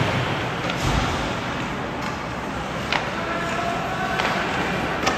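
Ice hockey rink sound: a steady wash of arena noise with several sharp clacks of hockey sticks and puck during play.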